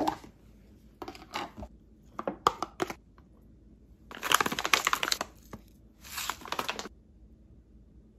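A plastic food container's lid comes off with a sharp click, followed by short clatters as the container is handled. About four seconds in, cooked rice is tipped out of the container into a glass bowl: a dense crackling patter lasting over a second, then a shorter burst a moment later.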